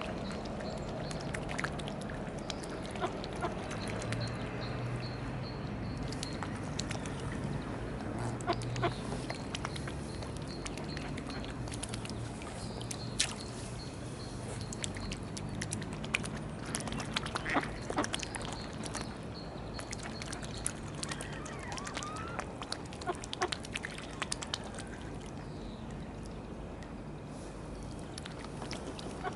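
Mallard ducks quacking now and then among small splashes and clicks at the water surface, over a steady low drone.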